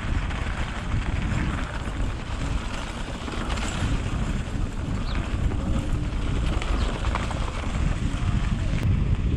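Wind buffeting the microphone while a mountain bike rolls along a dirt trail, with tyre noise and light rattling clicks from the bike over bumps.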